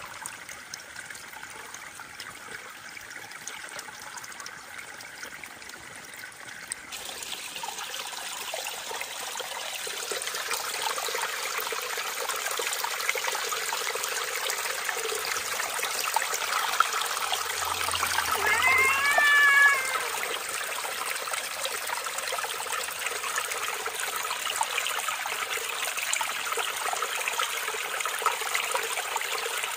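Shallow mountain stream trickling over rocks, louder after the first several seconds. A cat meows once a little past halfway: a single rising-then-falling call, the loudest sound here.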